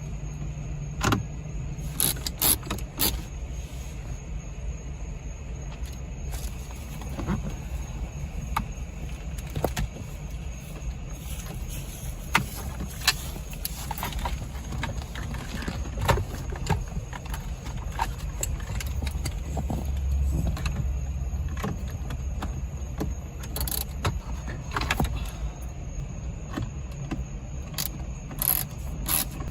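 Irregular light clicks, taps and rattles of tools and small parts being handled during dashboard screen repair work, over a steady low rumble.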